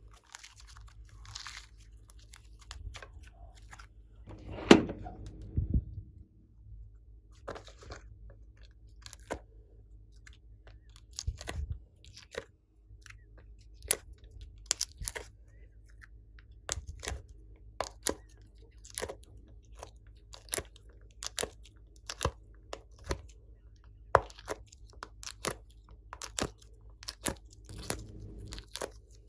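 Glossy slime being kneaded and squeezed by hand, giving irregular sticky clicks and crackling pops, several a second at times, with a louder squelch about five seconds in.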